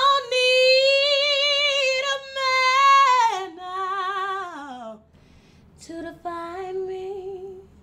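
A woman singing a cappella: a long high note, then a run sliding down, and after a short pause a lower held note near the end.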